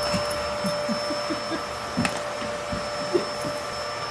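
Dyson vacuum cleaner running with a steady high whine, with a sharp knock about two seconds in.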